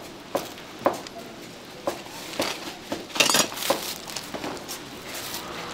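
Light kitchen clatter of dishes and utensils: scattered, irregular clicks and clinks, with a short rustling hiss a little past halfway.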